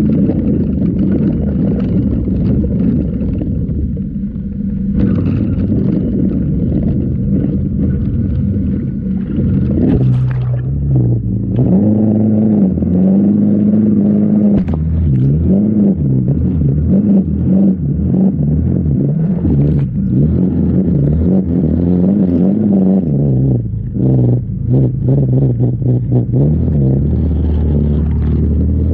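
Off-road vehicle engine revving up and down while driving through a shallow river, with water rushing and splashing. The first third is mostly rushing water noise; after that the engine note rises and falls again and again.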